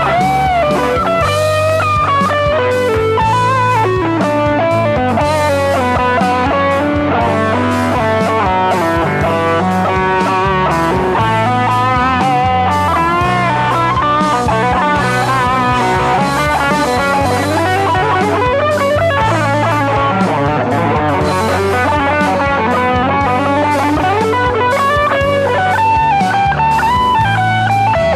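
Instrumental music led by electric guitar, with bending, gliding lead lines over a steady bass.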